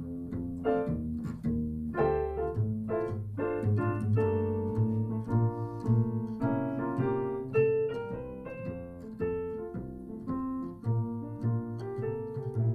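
A piano and a double bass playing together: piano chords and melody over a plucked double bass line.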